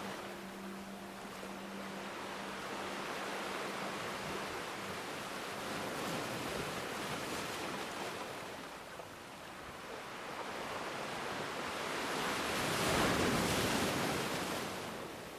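Ocean waves washing onto a beach, the surf swelling and ebbing, with one larger wave rising to a peak about two-thirds of the way through and falling away near the end.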